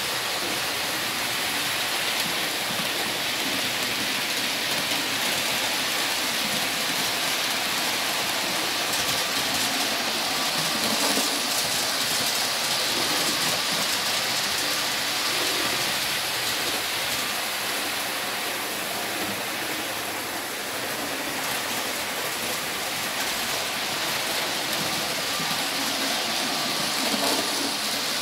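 Steady rattling hiss of OO-gauge model trains, a Hornby HST and a Bachmann Class 45, running on the layout's track, growing slightly louder near the end as the HST passes.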